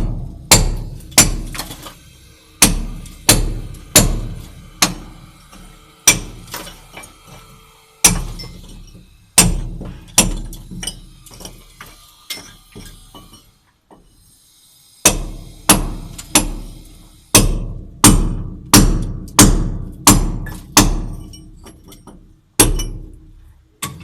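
Repeated hammer strikes, one to two a second, each hit ringing briefly as it dies away. There are short pauses between runs of blows.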